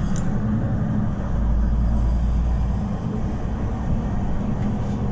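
City bus driving at speed, heard from inside at the front: a steady low engine and road rumble.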